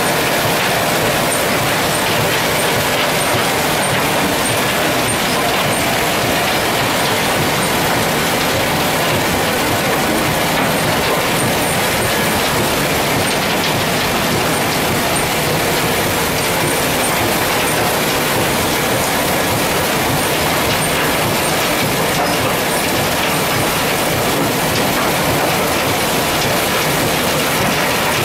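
Alluvial cassiterite separating plant running: the steady, even noise of its vibrating screens, trommel, classifier, motors and pumps, mixed with flowing slurry water.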